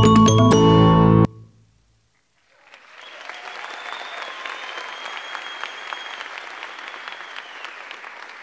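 Dance music with bright, chiming mallet-like notes stops abruptly about a second in. After a moment of near silence, audience applause rises and carries on.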